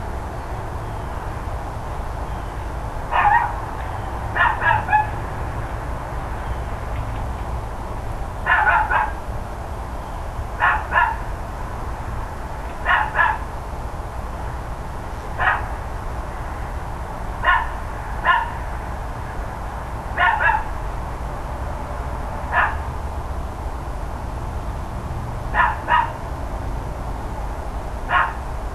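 Dog barking over and over, in single barks and quick pairs about every two seconds, over a steady low rumble in the background.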